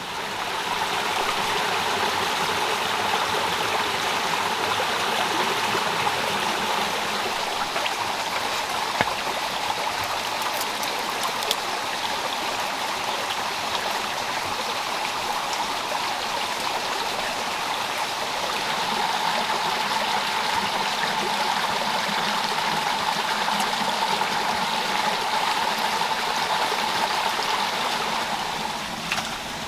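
Forest stream running steadily, a continuous rushing of water, with a few faint ticks now and then.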